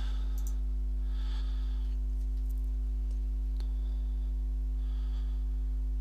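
Steady electrical mains hum at about 50 Hz with its overtones, the loudest thing throughout. A soft breath from a man with a head cold about a second in and again near five seconds, and a single click about three and a half seconds in.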